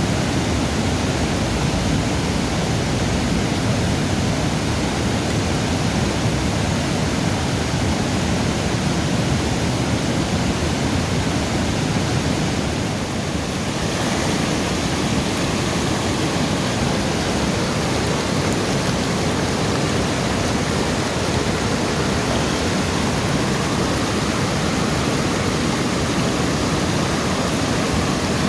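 River water rushing: a loud, steady, unbroken noise that dips slightly for a moment about halfway through.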